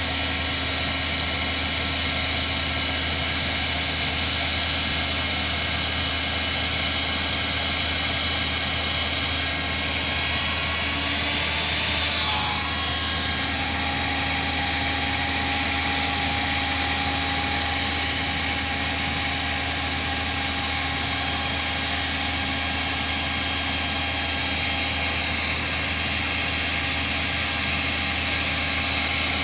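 A motor running steadily with a low hum and a high whine. About twelve seconds in, the whine wavers and one tone drops a little lower, then holds steady again.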